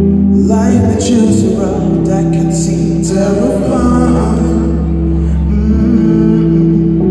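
A male singer singing a pop song into a microphone over sustained backing chords, amplified through a concert PA in a large hall.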